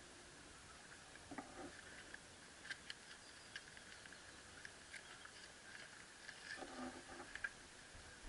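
Near silence: outdoor background with faint, scattered small clicks and ticks.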